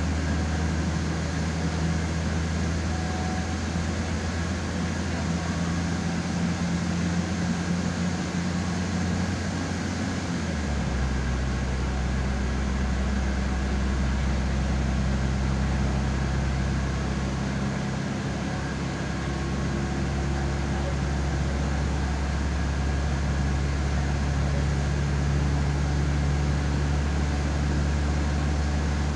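Diesel railcar running along the line, heard from on board: the steady hum of the engine and running gear. About ten seconds in, the engine note changes and drops lower, then holds steady.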